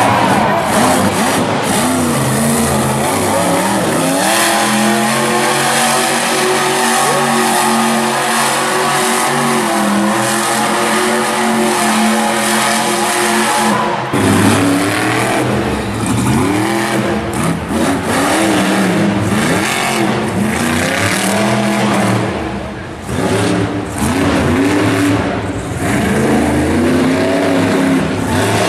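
Monster truck engine running hard: the pitch is held high and fairly steady through the first half, then after an abrupt change about halfway it revs up and down again and again as the throttle is worked.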